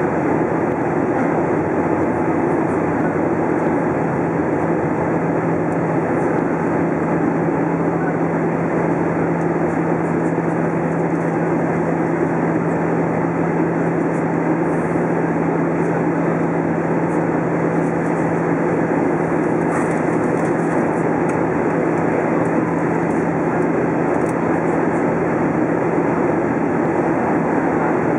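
Airbus A320 cabin noise in flight: a steady rush of engine and airflow noise with a constant low hum underneath.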